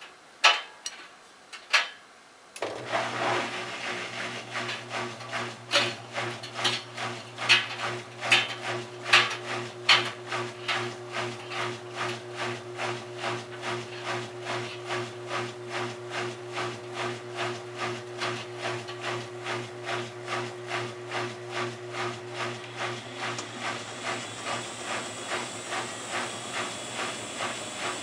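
Miele Touchtronic W3033 front-loading washer speeding its drum up toward spin: a few loud knocks, then a couple of seconds in the motor starts humming under a rhythmic knock about twice a second that gradually quickens, with a rising hiss near the end. The knocking is the machine rocking with each drum turn, since it stands unlevelled on carpet and is not well balanced toward the end of the cycle.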